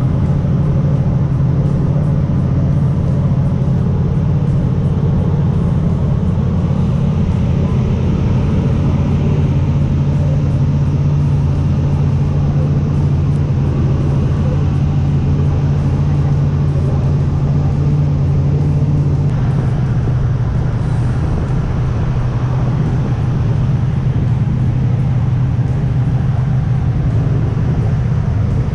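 Fishing boat's engine running steadily under way, a loud, even low hum that shifts slightly about two-thirds of the way through.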